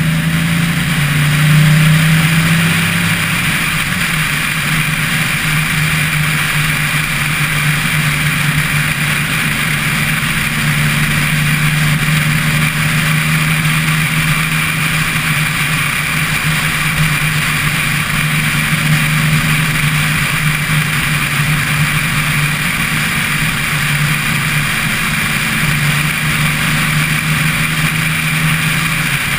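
Car engine running at a steady cruising pitch while driving, with wind and road noise on a camera fixed to the car's roof.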